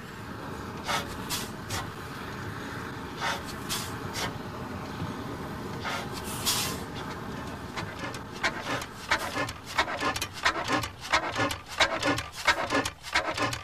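1895 Hornsby-Akroyd paraffin-burning oil engine being turned over and started by its flywheel: several sharp hissing puffs in the first half, then a rapid clattering run of clicks and knocks from about eight seconds in.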